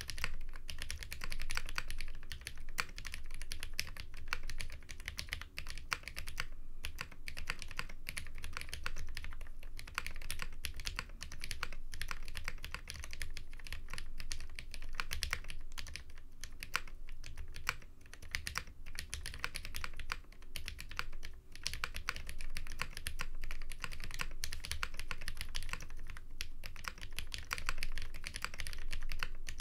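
Continuous typing on a KBD8x MKII custom mechanical keyboard with Cherry Hyperglide switches: a fast, uneven run of keystroke clacks, broken by a few short pauses, the clearest about seven seconds in.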